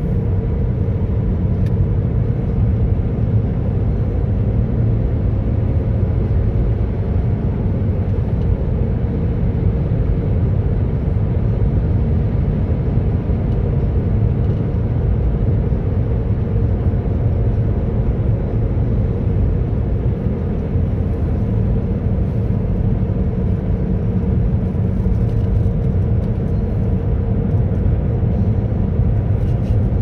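Steady low road rumble of a car driving at about 70 to 80 km/h, heard from inside the cabin, with a faint steady hum running through it.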